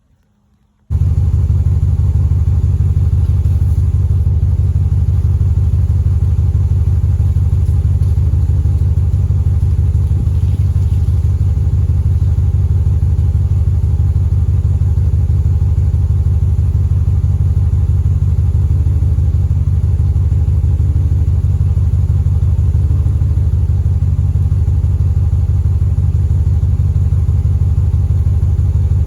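2021 Ram 1500 pickup's engine idling steadily, a low even rumble that cuts in abruptly about a second in.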